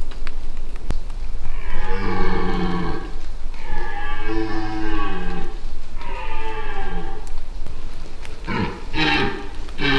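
Red deer stag roaring in the rut: three long, drawn-out roars, then near the end a quick run of short roars, about two a second.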